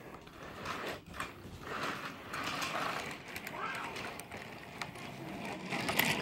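Small toy train motor and gears whirring steadily as a toy engine runs along plastic track, with a few sharp clicks.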